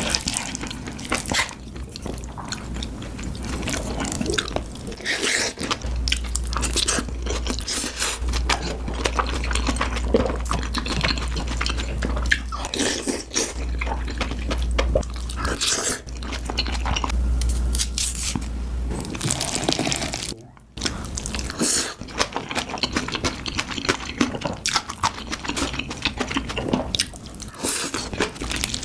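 Close-miked mukbang eating sounds: a person chewing and biting food in quick, irregular crunches. A low steady hum runs under it through the middle stretch.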